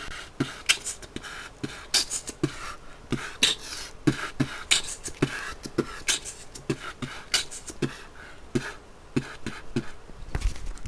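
A person beatboxing: a steady rhythm of low mouth kicks and sharp, hissing snare sounds, a couple of strokes a second.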